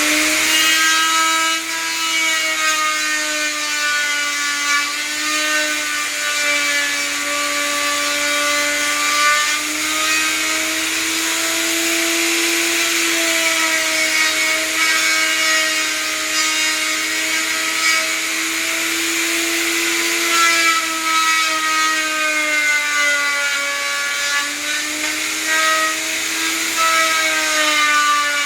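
Electric power tool running continuously while working wood, its steady motor whine dipping and wavering slightly in pitch as it takes load.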